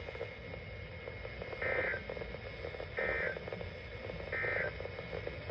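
Emergency Alert System end-of-message signal: three short, identical bursts of warbling digital data tones, about a second and a half apart, over a steady radio hiss. The bursts mark the end of the alert broadcast.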